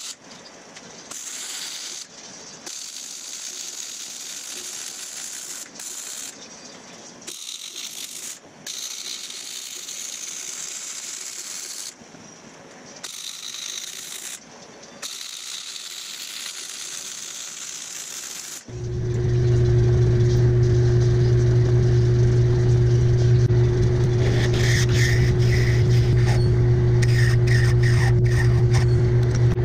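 Arc welding on steel: a steady crackling hiss that runs in several separate beads of one to four seconds, with short breaks between them. About two-thirds of the way through, a metal lathe starts up with a loud, steady hum. A twist drill then bores into a tube spinning in the chuck, adding rapid ticking and chatter.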